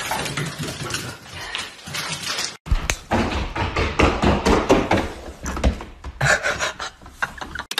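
Rapid thuds and knocks of a small pet's paws galloping across a hardwood floor, heaviest after a brief break in the sound about three seconds in.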